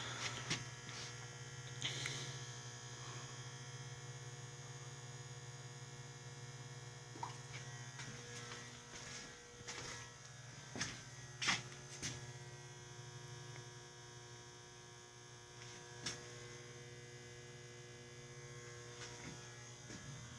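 Steady electrical mains hum with scattered faint clicks and knocks, a few sharper knocks about halfway through.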